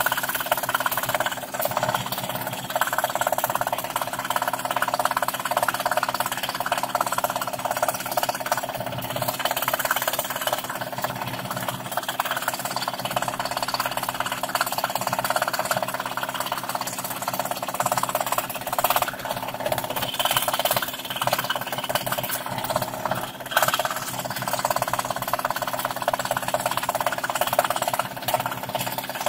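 Scroll saw running steadily, its fine reciprocating blade cutting through plywood: a continuous buzzing saw noise over a low motor hum.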